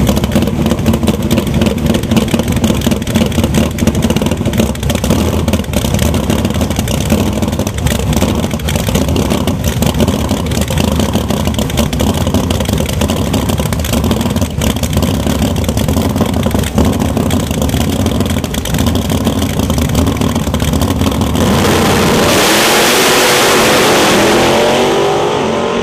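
Two nitrous-fed Pro Mod '69 Camaro drag cars idling with a choppy, low rumble in staging. About 22 seconds in they launch at full throttle into a much louder roar, and the engine note climbs as they accelerate away down the track.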